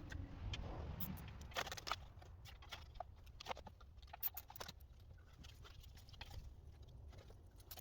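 Faint, irregular small clicks and rustles of hand work on a truck's fuel and wiring hardware, thicker in the first half, over a low steady rumble.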